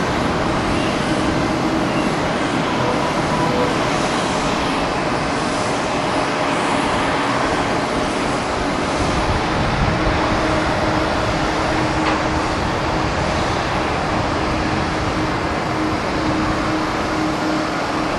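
Boeing 787-10's jet engines running at taxi power as the airliner rolls slowly onto the runway: a steady rumble with a faint hum, which grows a little stronger about ten seconds in.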